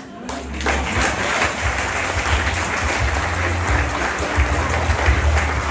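Audience applauding, starting about a third of a second in, with low bass notes of music playing under it.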